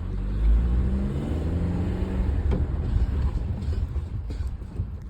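A motor vehicle running with a steady low rumble, joined by a pitched hum for the first couple of seconds; no grinding noise is heard.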